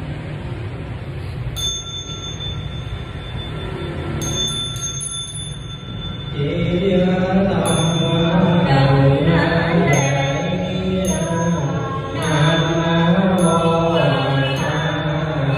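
A Buddhist bowl bell struck once, ringing on. From about six seconds in, a group chants a Buddhist invocation in unison, with short bright strikes about once a second keeping time.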